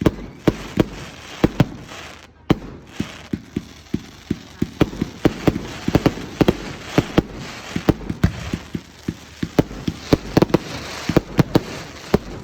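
Fireworks display: a rapid, continuous barrage of sharp bangs, several a second, with crackling between them.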